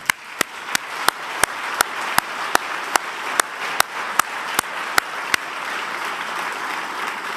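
Audience applauding, with one person's loud, regular hand claps close to the microphone, about three a second, that stop after about five seconds while the applause goes on.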